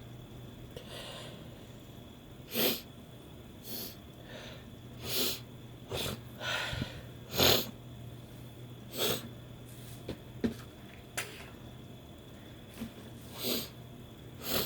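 A person's short, sharp nasal bursts, sniffs, snorts and sneezy blasts, about a dozen at irregular intervals, from a nose irritated by chhikni, a herbal sneezing powder. The loudest comes about seven and a half seconds in.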